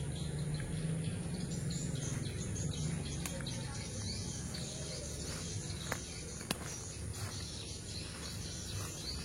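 Insects chirring in a steady high-pitched drone, with a low steady hum underneath and a few sharp clicks.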